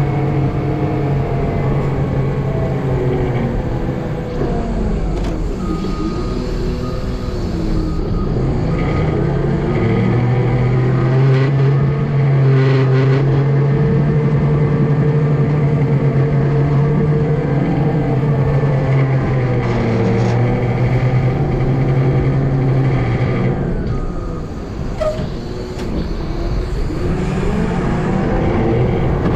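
A large vehicle engine running steadily, its pitch rising and falling as it revs up and down, with a short lull about three-quarters of the way through.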